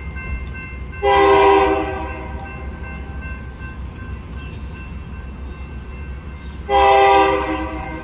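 BNSF freight locomotive's air horn sounding two blasts about six seconds apart, each a loud chord lasting about a second and fading out, over the low rumble of the train.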